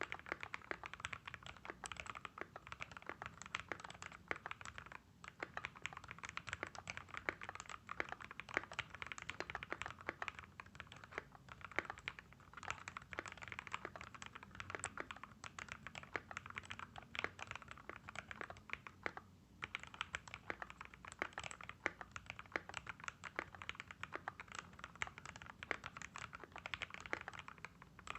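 Continuous fast typing on an NJ68 mechanical keyboard fitted with lubed AKKO x TTC Demon linear box-stem switches, a dense run of keystroke clicks with two brief pauses.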